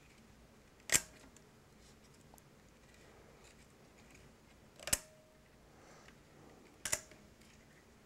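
Three sharp clicks from handling the plastic slack-management clips and tray while fiber is looped through them, two of them with a brief faint ring after.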